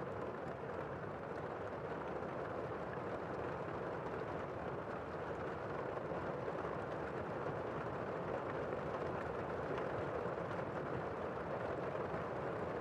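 Steady rain falling as an even hiss, with no thunderclaps.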